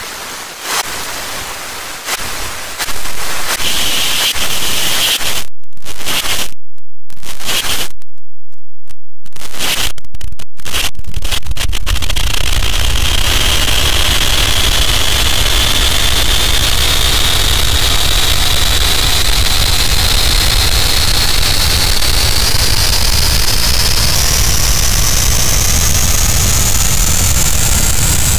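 Loud, heavily distorted static-like noise from an audio edit that stacks many layered copies of a sound with voice effects. It cuts out briefly several times in the first half, then runs steadily over a deep rumble, with a high whine that slowly rises in pitch toward the end.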